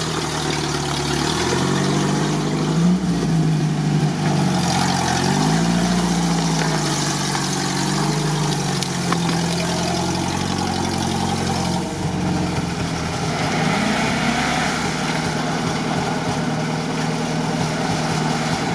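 UAZ off-road engine running and revving up and down several times as a UAZ stuck in deep swamp mud tries to drive out, with a hiss of churning mud and water for several seconds in the middle.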